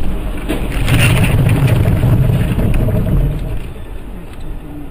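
Car crash heard from inside a following car: sharp knocks about a second in, then a loud low rumble lasting about two seconds that dies away.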